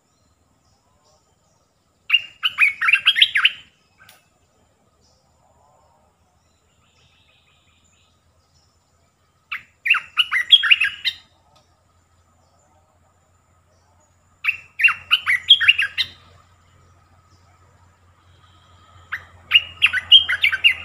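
Olive-winged bulbul singing: four short phrases of quick, liquid notes, each about a second and a half long and several seconds apart.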